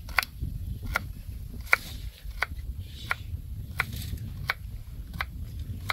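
Kitchen knife chopping a carrot on a round wooden cutting board. Eight or so crisp, even knocks of the blade through the carrot onto the wood, about three every two seconds, over a low rumble.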